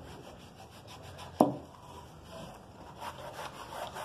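A cloth rubbing over a white-primed MDF crate in a series of short wiping strokes, as the crate is cleaned rather than sanded. About a second and a half in there is one sharp knock.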